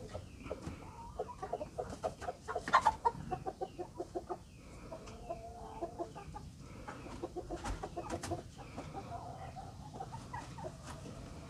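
Rhode Island Red chickens clucking: short notes in irregular runs, the busiest and loudest a few seconds in, with more scattered clucks later.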